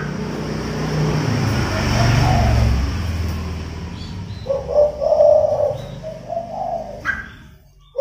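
Dove cooing in a phrase of low repeated notes starting about halfway through, with a short higher bird chirp near the end. A low rumbling noise fills the first three seconds.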